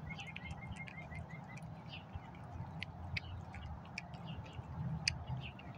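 Cat eating wet pâté cat food from a bowl: irregular wet smacks and clicks of chewing and licking.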